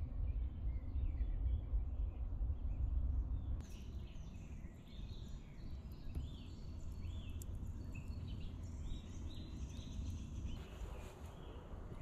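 Birds calling in the woods, many short rising and falling chirps, over a steady low rumble. A few sharp crackles from the wood fire come near the end.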